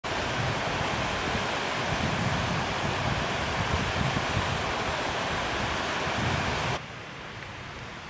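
Small cascading waterfall on a mountain stream, water rushing and splashing steadily. About seven seconds in the sound drops abruptly to a much fainter steady hiss.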